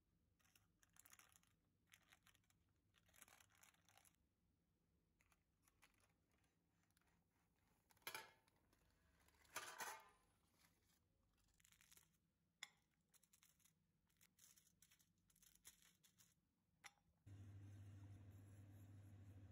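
Faint kitchen handling sounds: soft rustles of paper and light clicks, with two louder scrapes about eight and ten seconds in. Near the end a steady low hum starts.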